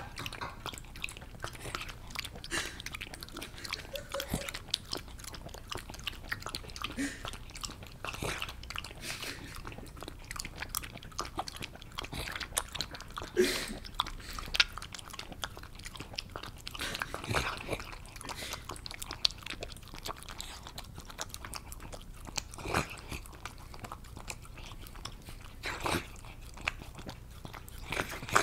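Wet mouth noises of a dog drinking: dense, irregular clicking, smacking and slurping, with a few louder smacks.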